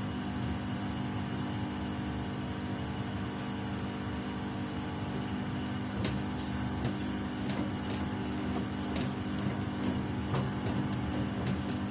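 Samsung WW75TA046TE front-loading washing machine running with a steady hum, with irregular sharp clicks and ticks that come more often from about halfway through. The noise is one a Samsung technician judged not normal for the machine.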